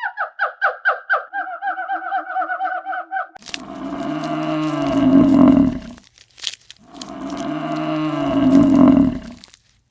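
A cow mooing twice in long, low calls, each swelling to its loudest near the end. Before them, a rapid run of short, high-pitched calls from another animal.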